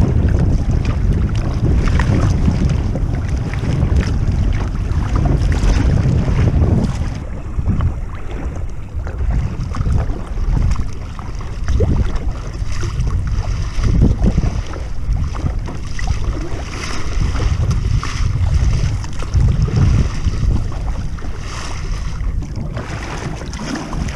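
Wind buffeting the microphone with a heavy low rumble, over water splashing and lapping as a kayak is paddled through light chop.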